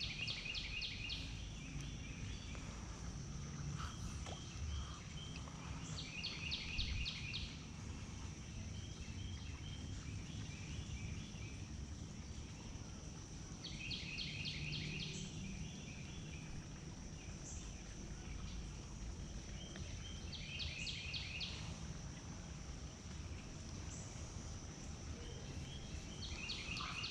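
Outdoor creekside ambience: a songbird sings a short, rapid, trilled phrase about every six to seven seconds, over a steady high-pitched insect drone and low background noise.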